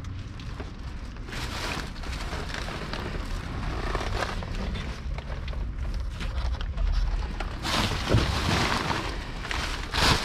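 Plastic trash bags and cardboard boxes rustling and crinkling as gloved hands shift them around in a dumpster, over a steady low rumble. The handling gets louder and busier near the end.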